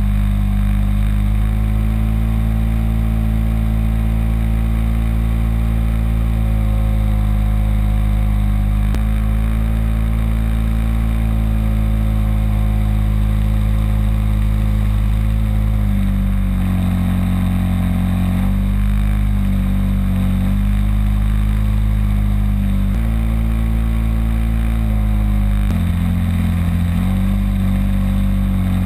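A single-engine Cessna's piston engine and propeller droning in flight, with air rushing over the externally mounted camera. The engine note steps up and down several times in the second half.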